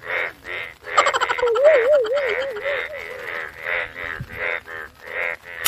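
Cartoon-style comedy sound effects added in editing. A regular run of short pulses, about three a second, plays throughout, and about a second in a wobbling tone starts that warbles up and down for about two seconds.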